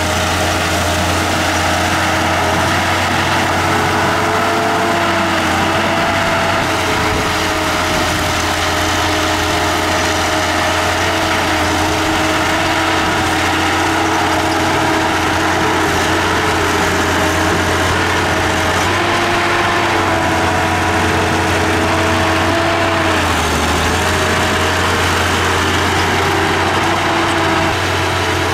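Diesel engine of a Komatsu D31P small bulldozer running steadily as it pushes and spreads dirt, a constant low hum with a few higher tones whose pitch rises and dips slightly at times.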